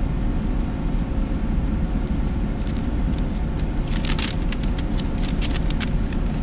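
Steady low rumble of room noise in a large enclosed hall, with a faint steady hum. From about two and a half seconds in come light clicks and scuffs, footsteps on artificial turf that grow closer near the end.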